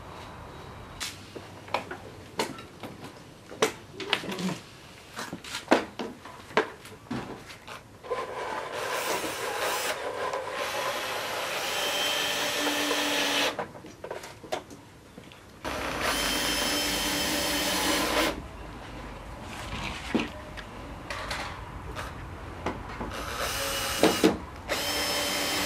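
Scattered sharp knocks and clicks, then a cordless drill driving screws through a plywood deck into a pine frame in three runs of a few seconds each.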